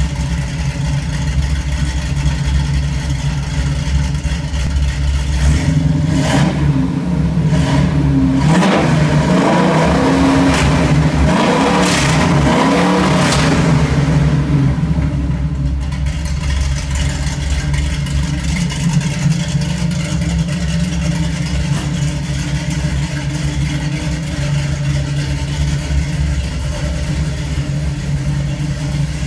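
A 1970 Boss 302 Mustang's V8 runs through FPA headers, a Dr. Gas X-pipe and SpinPro mufflers. It idles with a steady low rumble, is blipped up and down in a string of revs through the middle, then settles back to idle.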